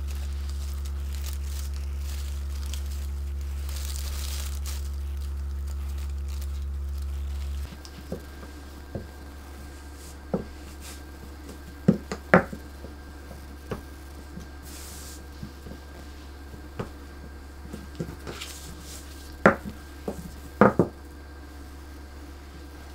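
A steady low electrical hum runs for the first seven or eight seconds and then stops suddenly. Against the quieter background that follows come scattered light taps and knocks of a plastic rolling pin and a knife on a silicone mat as fondant is rolled out and cut.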